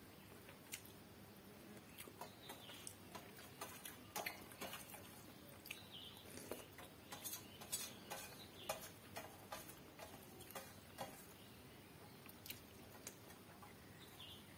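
Faint, irregular clicks of someone eating rice by hand: chewing and lip smacks, and fingers working rice against a steel plate, most frequent in the middle stretch.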